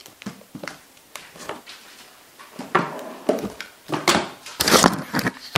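Small speaker boxes made from cardboard delivery boxes being handled and set down on a wooden workbench: a run of knocks, taps and rustling, sparse at first and louder and busier in the second half.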